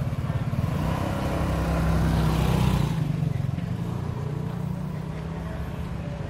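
A motor vehicle passing close by on the street, its engine and road noise growing louder to a peak about two seconds in, then fading away over the traffic hum.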